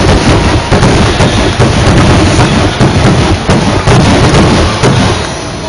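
Fireworks going off in a rapid, continuous barrage of overlapping booms and crackle, thinning a little near the end.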